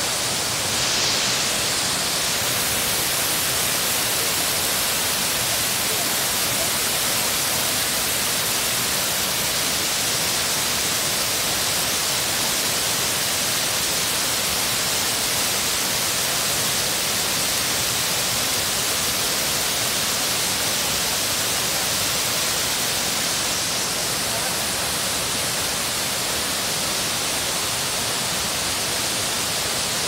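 Kapuzbaşı waterfall rushing steadily: an unbroken hiss of falling water, strongest in the high range, with no change in level.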